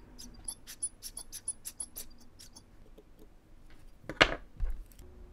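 Small, sharp metallic ticks and clicks of watchmaking tools touching a tiny watch movement and its holder, about four or five a second, then a single louder knock about four seconds in and a lighter one just after.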